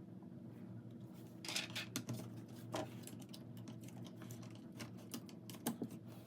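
Scattered light clicks and rattles of the jump starter's opened plastic case and its parts being handled, starting about a second and a half in, over a steady low hum.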